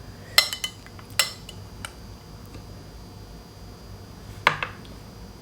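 Eating utensils clinking against dishes: a few sharp, short clinks, two close together near the start and another near the end.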